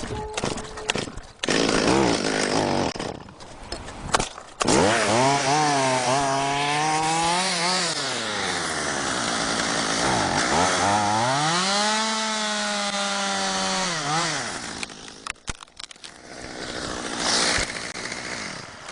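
Two-stroke chainsaw cutting through the trunk to sever a tree top: the engine revs up and holds under load twice, dropping back between and after the cuts.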